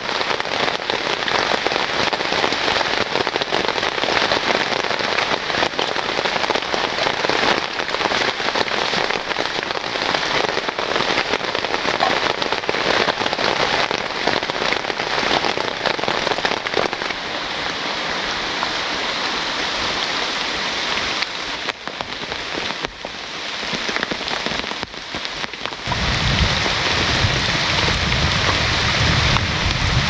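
Steady rain falling, a dense hiss of many drops hitting. A few brief dips about three-quarters of the way through, then a deeper low layer joins near the end.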